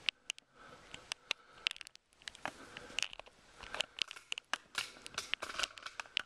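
Irregular sharp clicks and crackles, several a second, from the camera being handled and moved.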